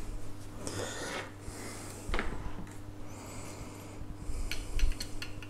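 Handling noise from a plastic DJI Phantom 2 quadcopter body being turned on a work mat and a gimbal being picked up and fitted. Soft rubbing, with a few light plastic clicks near the end.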